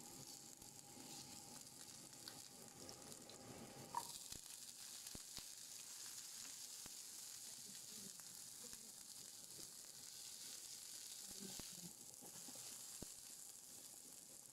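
Ginger and spring onion sizzling faintly in oil in a nonstick frying pan, a steady hiss. There is one sharp knock about four seconds in and a few light ticks after it.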